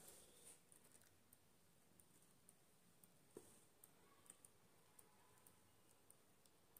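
Near silence with faint, scattered clicks of a gold-and-black-bead chain and its pendant being lifted and handled; one click a little louder about three and a half seconds in.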